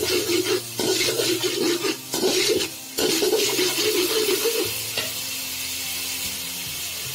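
Garlic and ginger paste sizzling in hot oil in a metal pan, stirred and scraped with a perforated metal slotted spoon. The stirring stops about five seconds in, leaving a steady sizzle.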